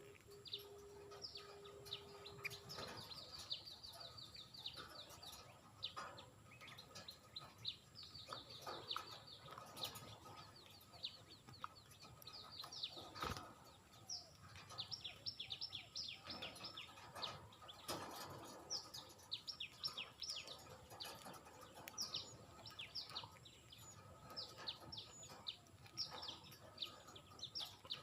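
Pet budgerigars chirping: dense runs of short, quickly falling chirps, with one sharp click about halfway through.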